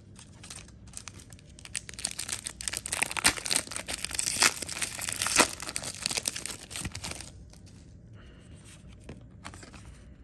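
A sealed plastic trading-card pack being torn open by hand, the wrapper crinkling for about five seconds, starting about a second and a half in.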